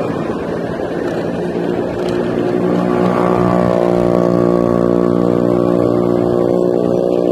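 Wind and road noise from riding a small electric kick scooter along a road, with a motor vehicle's engine hum coming in about a second and a half in and growing louder by about three seconds in.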